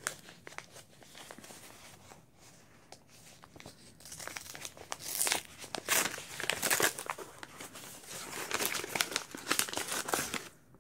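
Paper mail envelope being torn open and its contents handled: irregular crinkling, rustling and tearing, faint at first, busier and louder from about four seconds in, then stopping abruptly near the end.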